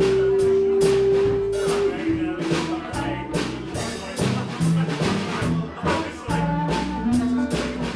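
Blues band playing an instrumental break: a long held lead note that ends about two seconds in, then shorter held notes over a steady drum beat with regular cymbal hits.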